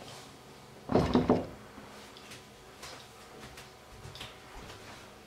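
Kitchen handling sounds: a short clatter about a second in, then a few faint light knocks.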